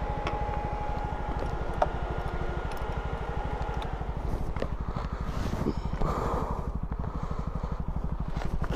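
Motorcycle engine idling with a steady, rapid low putter, joined by a few light knocks and clatter.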